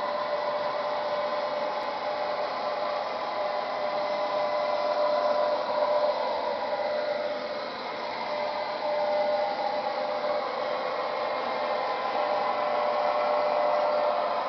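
Märklin model trains running on a layout: a steady whirr of F7 locomotive motors and wheels rolling on the track, with a steady whine that swells and eases a little as the trains pass.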